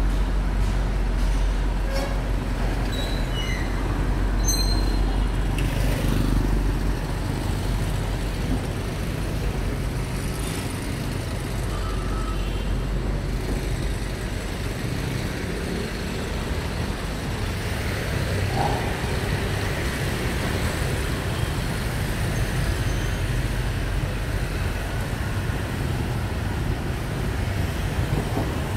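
Street traffic: cars, a truck and motor scooters passing, a steady mix of engines and tyres. A deep engine rumble fades about six seconds in, and a few brief high tones sound now and then.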